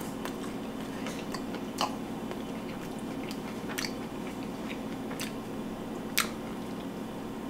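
A man chewing a mouthful of fried catfish, with a few short crunchy clicks over a steady low hum.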